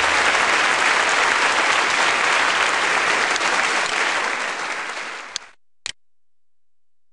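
Audience applause at the end of a live song recording, fading out about five and a half seconds in. Two short clicks follow, then quiet.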